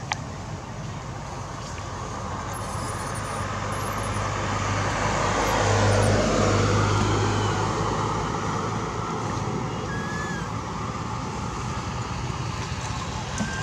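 Road traffic: a motor vehicle passing, with a steady low hum, growing louder to a peak about six seconds in and then fading away.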